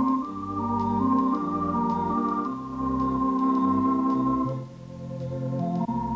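Background music of held keyboard chords over a changing bass line, dipping briefly a little past the middle.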